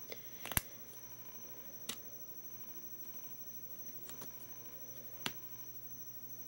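A handful of short, sharp clicks and taps, about five, with the loudest about half a second in: a metal crochet hook knocking against the plastic pegs of a knitting loom while loops are lifted over the pegs. A faint steady hum runs underneath.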